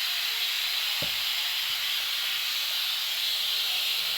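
Steady hiss of steam, with a faint low knock about a second in.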